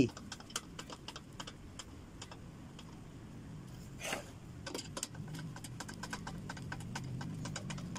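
Irregular light clicking and ticking of a hand screwdriver turning screws into a steel table frame. A sharper knock of metal comes about four seconds in.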